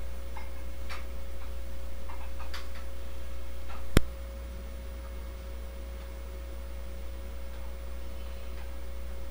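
Light, irregular clicks and small knocks from a dumbbell being curled, over a steady low hum and a faint steady tone. One sharp click about four seconds in is the loudest sound, and the background is a little quieter after it.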